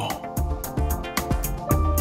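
Background music with a steady beat and held instrument notes.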